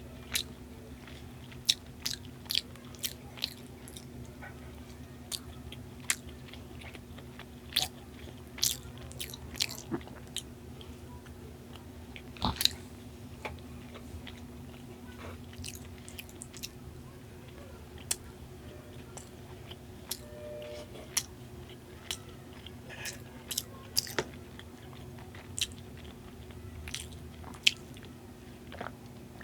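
Close-miked eating sounds of Indian sweets being bitten and chewed: irregular sharp mouth clicks and smacks, a few every couple of seconds. A steady low hum runs underneath.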